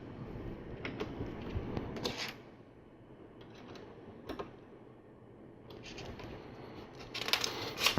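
LEGO plastic pieces being handled and pressed together: scattered small clicks and taps, with a denser run of clicks near the end.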